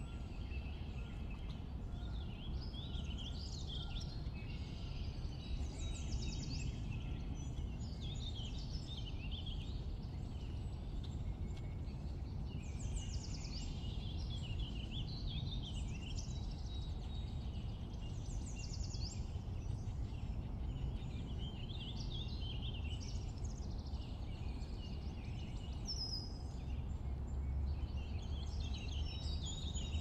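Spring birdsong: several songbirds singing short, high, falling and trilled phrases every second or two, over a steady low background rumble.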